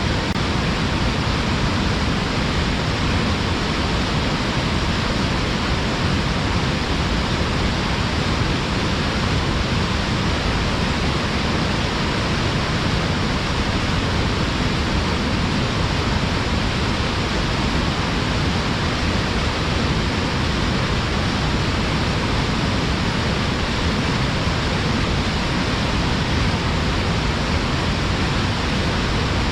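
Mountain waterfall pouring hard between rocks: a steady, unbroken rush of falling water.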